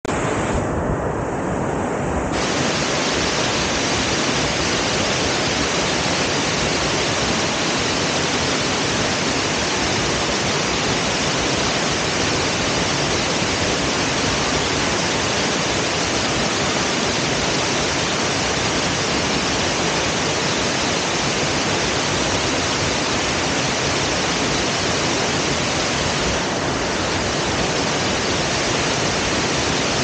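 Steady rush of waterfalls and shallow stream water, an even hiss that does not let up. It sounds briefly duller for a moment about a second in.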